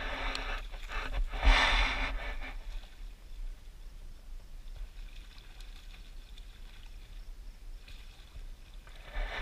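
Wind buffeting the microphone, with bursts of rustling noise in the first couple of seconds. Near the end a hooked bass splashes and thrashes at the water's surface.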